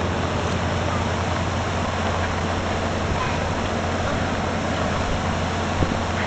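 Flooded creek running high and fast, a steady rush of water with a small cascade spilling over a concrete ledge.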